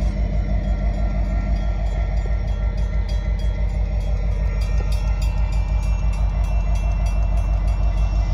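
Freight train of hopper cars rolling along the rails, a steady low rumble with a quick pulsing beat from the wheels.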